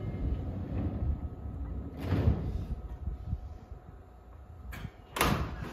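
Doors of a Seibu 9000-series commuter train closing before departure: a heavy thud with a short rush of air about two seconds in, then a sharp slam near the end. The stopped train hums steadily underneath.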